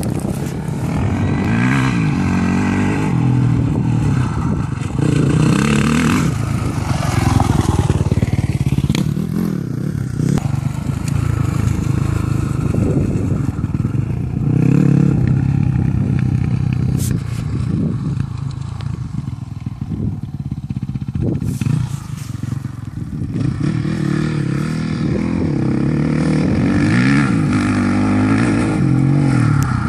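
Off-road dirt bike engine revving on a dirt track, the revs rising and falling over and over as the rider works the throttle and gears.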